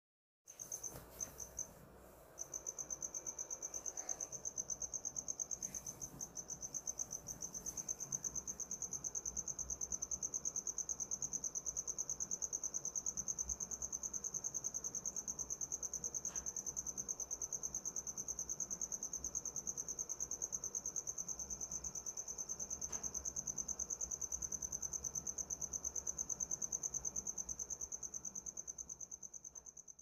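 A cricket calling: a high-pitched trill of rapid, even pulses. It starts as a few broken chirps, then about two and a half seconds in settles into one unbroken trill.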